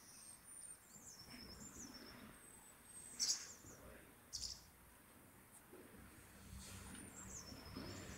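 Faint songbird song: a high twittering phrase near the start, repeated near the end, with two short, louder high sounds in between.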